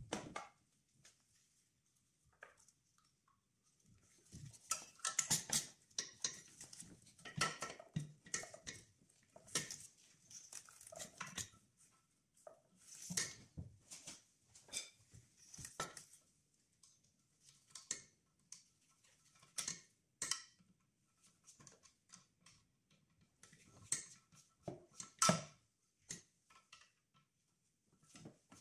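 Hand tools and metal engine parts clinking, scraping and rattling on and off as a new EGR valve and cooler are fitted onto a diesel engine, with the loudest clatter about 25 seconds in.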